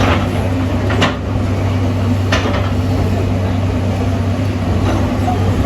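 An engine running steadily under sharp knocks, with two clear ones about a second and two seconds in and a fainter one near the end.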